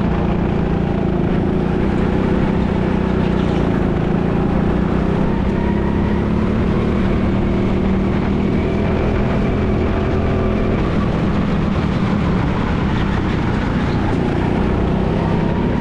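Go-kart heard from onboard while driving at speed, its motor running steadily with small rises and falls in pitch as it takes the corners.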